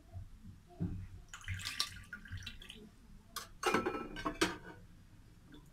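Water poured and splashing in two short bursts, with sharp knocks and clinks of kitchen dishes.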